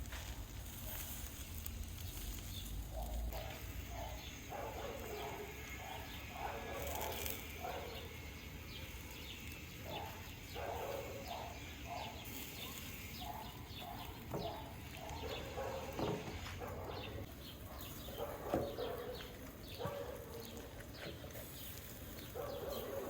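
Animal calls, short and repeated in clusters, with faint clicks between them.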